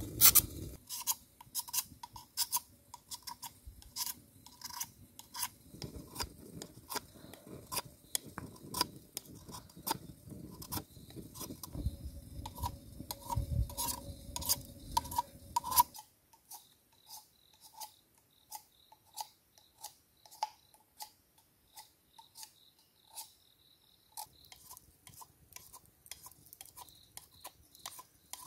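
Wood campfire crackling and popping, with many sharp, irregular snaps over a low flame rumble. About sixteen seconds in the rumble stops and the crackles turn quieter and sparser.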